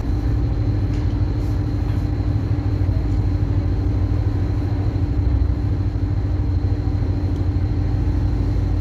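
A passenger ferry's engines running underway: a steady low rumble with a constant drone above it.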